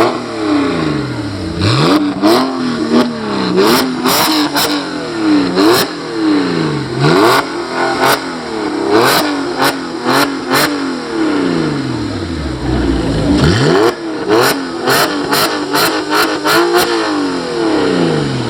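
Porsche 911 997.1 Carrera flat-six through an aftermarket Mamba exhaust, revved again and again, the engine note rising quickly and falling back with each blip. Sharp cracks pop from the exhaust many times as the revs drop.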